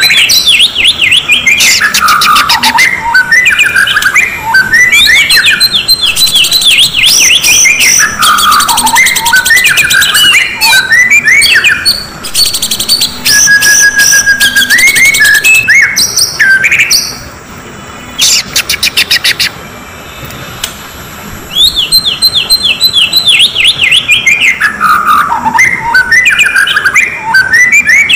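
Oriental magpie-robin (kacer) song from a lure recording: fast, varied phrases of quick downward-sweeping whistles and trills mixed with harsh rasping rattles, typical of an agitated male. A sparser, quieter stretch of single notes and rasps sits just past the middle before another full bout near the end.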